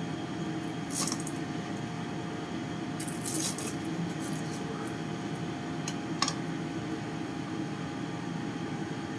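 Crisp fried rice-paper shrimp cake crunching in short bursts, three times, over a steady low background hum.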